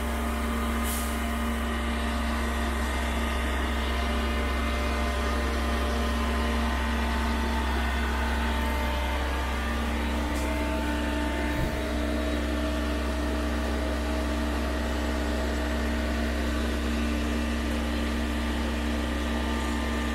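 Mortar boom pump truck's engine running steadily under load, driving the hydraulics while the boom is folded away after pumping; a low hum with a steady tone, a second tone joining about halfway.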